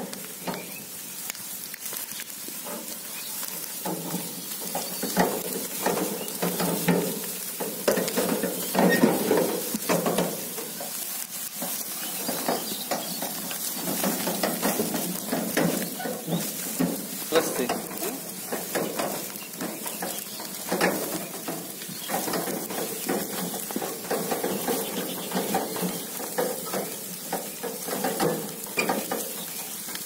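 Dry wheat stubble and straw crunching and crackling under the wheels and feet as a wheeled threshing machine is pushed and dragged through the field, with scattered knocks and rattles from the machine.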